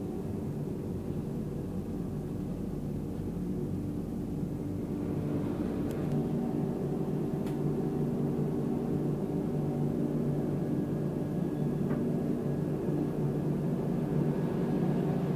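Steady low rumble and hum inside a Humsafar Express passenger coach as the train runs, growing a little louder about five seconds in.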